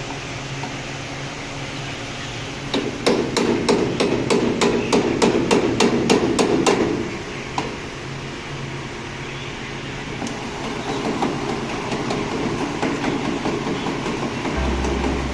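Rapid hammering, about four blows a second for some four seconds, then fainter, scattered knocks, over a steady mechanical hum.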